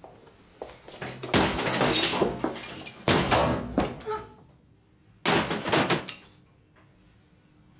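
Three heavy blows with a videocassette recorder striking a person, each a loud crash lasting about a second, the second about three seconds in and the third about five seconds in.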